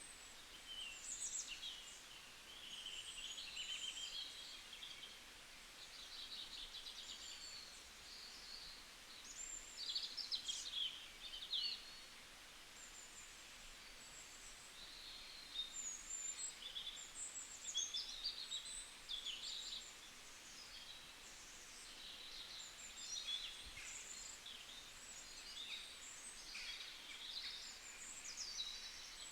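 Several small birds singing and chirping at once: a continuous chorus of short high trills, twitters and quick rising and falling whistles over a faint background hiss.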